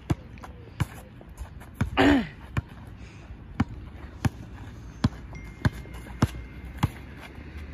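A basketball being dribbled on a tarmac court, a sharp bounce about every two-thirds of a second. About two seconds in there is a short shout, falling in pitch.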